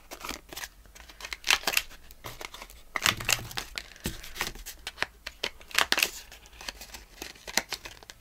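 Handheld corner rounder punch clicking as it clips the corners of paper postcards, several sharp snaps a second or more apart, with paper cards rustling and being shuffled between them.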